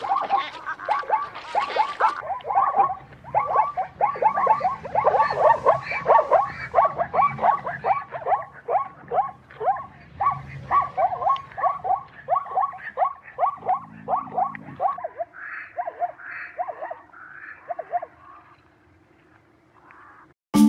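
Plains zebra barking: a long rapid run of short, yappy barks, about three a second. The barks grow fainter and sparser after about fifteen seconds and stop shortly before the end.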